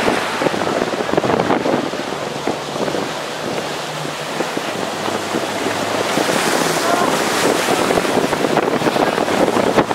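Strong wind of about 14 m/s buffeting the microphone over the rush and slap of choppy water, with a 29er skiff planing by. A faint steady low hum runs underneath.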